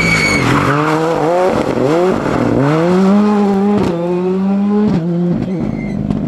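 Ford Fiesta rally car accelerating hard out of a bend and away, its engine pitch climbing through several quick upshifts with sharp cracks at the changes. The tyres squeal briefly at the start.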